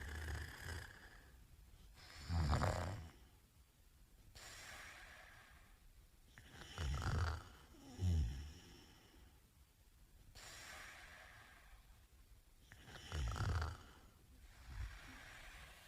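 A man snoring in his sleep: loud, low snores about every five seconds, two of them close together near the middle, with softer breathing between.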